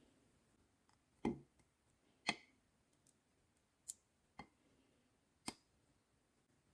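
Five short, sharp clicks and knocks spaced irregularly over faint room tone. The first, about a second in, has a duller low thud, and the second, a second later, is the loudest.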